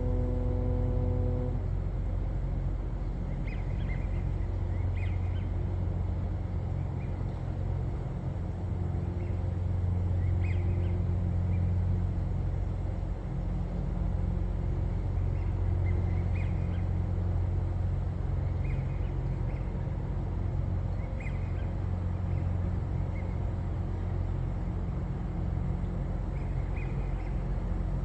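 A foghorn's low note, which cuts off about a second and a half in, followed by a steady low rumble with short, faint bird calls now and then.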